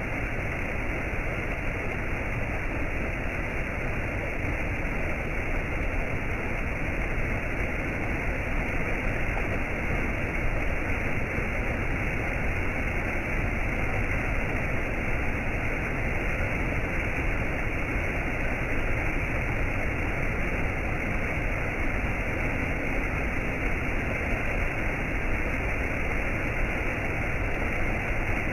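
Steady, unbroken rush of falling water from a waterfall, with no separate splashes or drops and the high hiss cut off.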